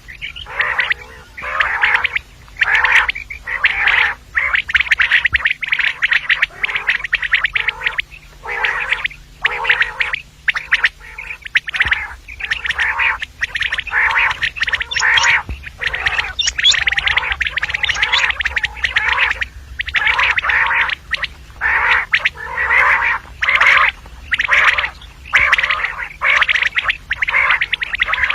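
Female common quail calling: short, dense bursts of calls coming one after another with brief gaps, over a faint steady low hum.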